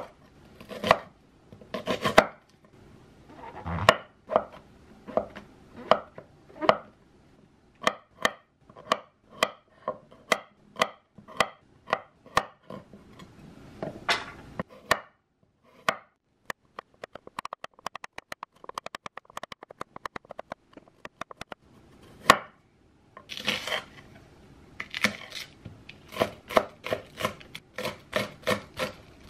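Chef's knife chopping vegetables (onion, then garlic and green onion) on a wooden cutting board, each stroke a crisp knock on the board. The strokes come about once a second, give way in the middle to a quicker, quieter run of taps, and pick up again to a faster steady chop near the end.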